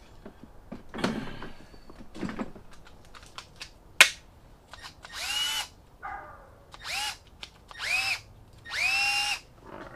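Milwaukee M12 cordless drill given four short trigger pulls, its motor whining up to speed each time and stopping, the last pull the longest. Before them there is some handling and a sharp click.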